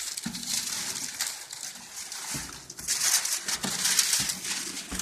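Rustling and scraping of a cardboard box and its packaging being handled and opened, with a few light knocks.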